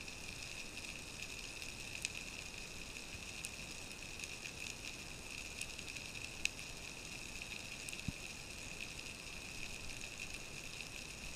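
Underwater ambience heard through a submerged camera housing: a steady faint high hiss with a few scattered sharp clicks.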